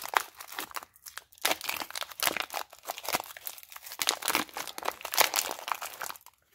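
Clear plastic packaging crinkling and tearing as a rail of sockets is pulled out of it by hand, in a dense run of irregular crackles with a short lull about a second in.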